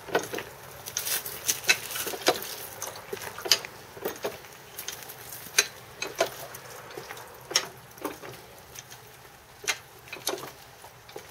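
Ratchet of a wooden-slatted basket wine press clicking as its long lever is worked back and forth to squeeze fermented grape must. The clicks are sharp and come unevenly, about one to three a second.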